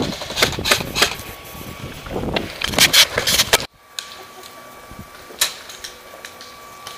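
Airsoft guns firing: irregular sharp snaps, several close together. About three and a half seconds in they cut off abruptly to a quieter background with a faint steady tone and one more snap.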